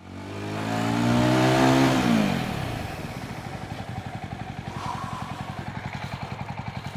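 Jawa 350 motorcycle's single-cylinder engine pulling the bike up the road, getting louder and rising in pitch for about two seconds, then dropping as the rider rolls off the throttle. It then settles into an idle with a steady, even thump.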